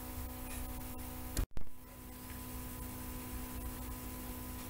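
Steady electrical hum and hiss of the recording's background between spoken lines. About one and a half seconds in, a short click and a moment of dead silence mark a cut in the audio.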